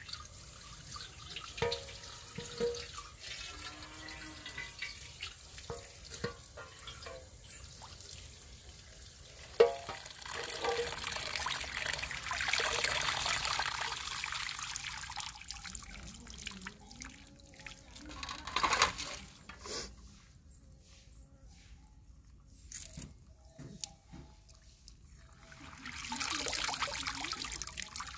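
Tap water pouring into an aluminium basin of spinach leaves, with splashing and dripping as the leaves are rinsed and lifted out by hand, and a few sharp knocks. The running water swells about a third of the way in and again near the end.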